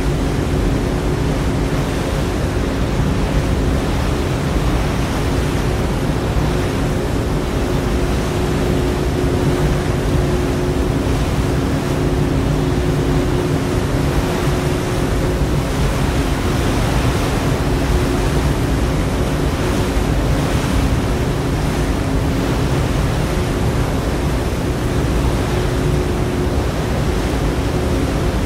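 Steady wash of water and wind with a low, even engine drone underneath: a harbour ferry under way.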